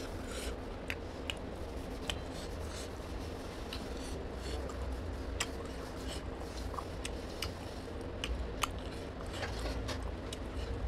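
Close-miked eating sounds: chewing and mouth smacks with scattered short, sharp clicks as rice is eaten by hand, over a steady low hum.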